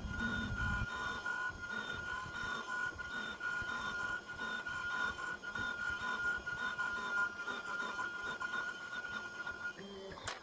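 Small CNC milling machine's spindle whining steadily at one high pitch while grinding down an iPhone IC, with a pulsing repeat about twice a second; it stops with a sharp click near the end.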